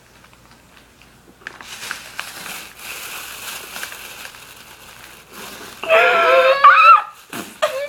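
Plastic bag crinkling and rustling as it is handled. Near the end comes a loud, high, wavering whine that rises and falls in pitch for about a second.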